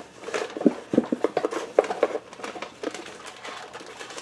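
Cardboard box and snack wrappers rustling and crinkling as a hand rummages in the box, busiest in the first two seconds and fainter after.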